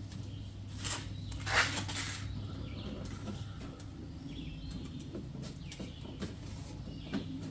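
A few sharp knocks of a rubber mallet striking the wood chipper's homemade discharge chute, the loudest about a second and a half in, being hammered to bend it to point further down.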